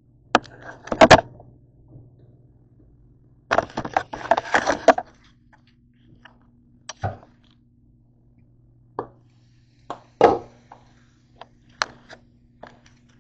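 Irregular knocks and clatter of cookware and utensils being handled at a stove, with a dense run of clattering about four seconds in and single sharp knocks after it, over a faint steady low hum.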